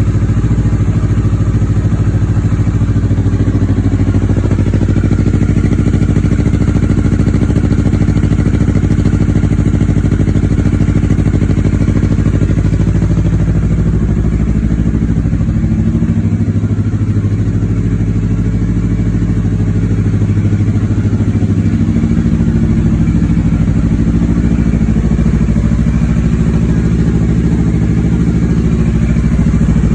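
2016 Kawasaki Ninja 650's parallel-twin engine idling through a Two Brothers Racing silver series full exhaust with a carbon silencer, on its first warm-up after the install. The idle runs steady, wavering slightly in pitch around the middle.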